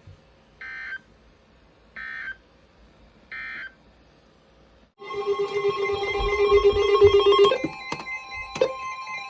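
Emergency Alert System end-of-message data signal: three short buzzing bursts of digital tones, a little over a second apart, marking the end of the alert. About five seconds in, loud music starts.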